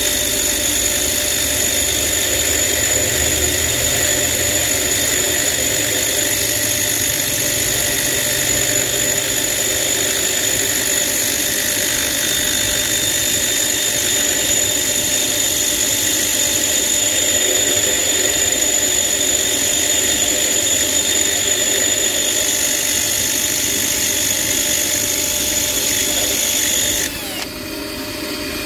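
Grinding wheel running with a screwdriver shaft, spun in a cordless drill, pressed against it: steady metal grinding on the stone with a high motor whine, as the shaft is ground down thinner. Near the end the shaft is lifted off the wheel and the grinding drops away briefly before it starts again.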